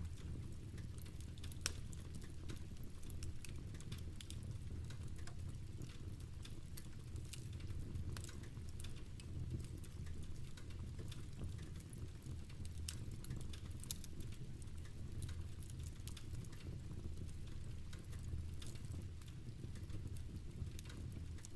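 Steady rain pattering, with a wood fire crackling: irregular sharp pops over a low, even rumble.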